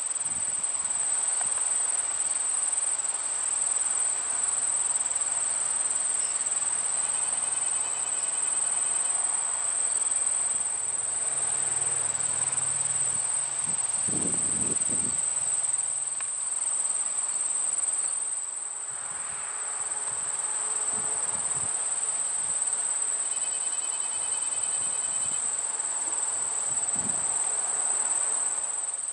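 Insects trilling steadily at a high pitch, without a break.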